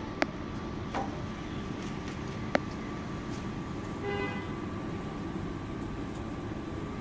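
Steady low outdoor rumble with a faint constant hum, broken by three sharp clicks in the first few seconds and a short pitched tone about four seconds in.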